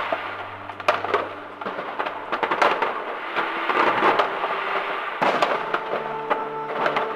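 New Year's fireworks going off across a neighbourhood: a dense run of bangs, pops and crackling from many rockets and firecrackers. Music comes in over the last couple of seconds.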